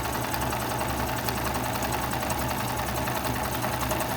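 Viking sewing machine running steadily as it stitches an embroidery pattern, its motor humming under fast, even needle ticking. It runs smoothly, back in working order.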